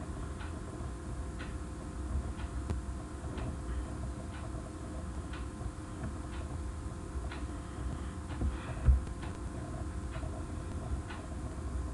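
Quiet, even ticking about once a second over a low steady room hum, with one louder knock about nine seconds in.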